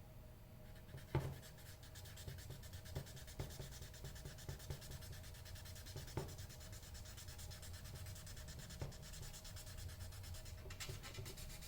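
Faint rubbing of 1000-grit sandpaper worked by hand over a dinghy rudder's gel coat, with a light knock about a second in and a few smaller ones later.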